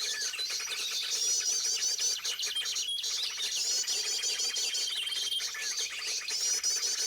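Many small birds chirping and calling at once, a busy mix of quick tweets and trills. The same rapid trilling phrase and a long, thin, steady high whistle come back about every three seconds.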